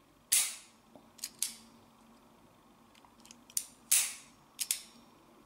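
Ruger GP100 revolver's action being worked by hand: two sharp metallic snaps of the hammer, about three and a half seconds apart, each followed about a second later by a pair of lighter clicks.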